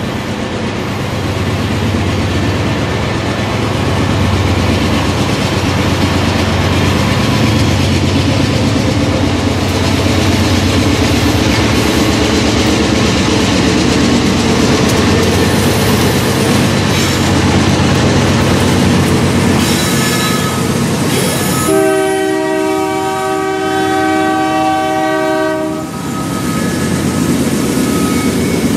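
Union Pacific GE diesel locomotives hauling a coal train past at track side: the engine rumble builds over the first few seconds, then gives way to the clatter of hopper cars on the rails. About three-quarters of the way through, a train air horn sounds one long multi-note blast of about four seconds.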